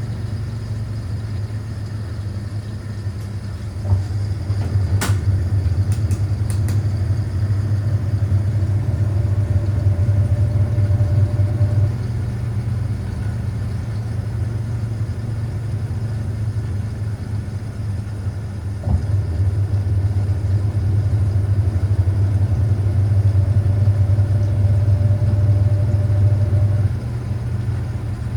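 Hoover 800RL top-loading washing machine in its final spin, its motor humming steadily. Twice a click is followed by the hum growing louder for about eight seconds before it drops back suddenly, and a few sharp ticks come about five seconds in.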